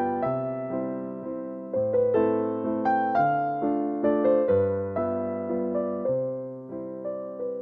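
Background piano music: a slow melody over chords, each note struck and then fading.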